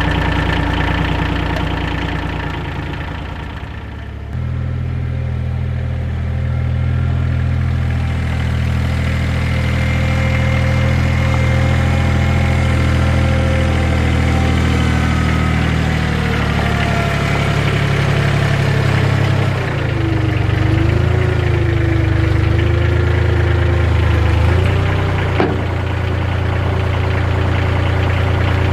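Compact tractor's diesel engine running steadily as it drives, dropping off briefly and then picking up sharply about four seconds in. In the later part a whine wavers up and down in pitch over the engine, and a single sharp click sounds near the end.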